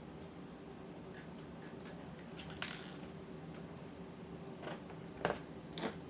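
Irregular light clicks and taps of a small Phillips screwdriver working tiny screws out of a laptop screen's side mounts, over a faint steady hum. The loudest clicks come about halfway through and twice near the end.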